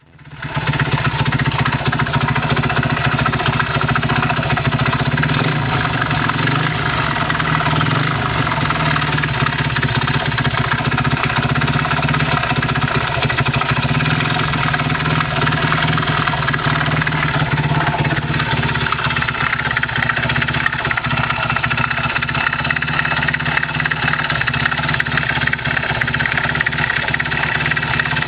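Honda Monkey's single-cylinder four-stroke engine idling steadily, running with an abnormal noise.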